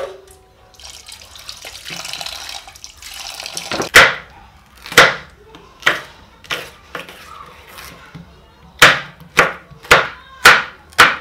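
Kitchen knife slicing a green bell pepper into strips on a plastic cutting board: about ten sharp knocks of the blade hitting the board, coming roughly two a second near the end. Before the chopping there are a few seconds of steady hiss.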